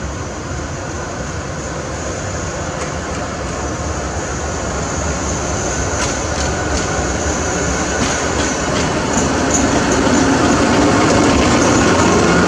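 Thai railway diesel locomotive approaching at low speed and drawing past, its engine and wheels growing steadily louder throughout, with a few sharp clicks from the wheels on the track.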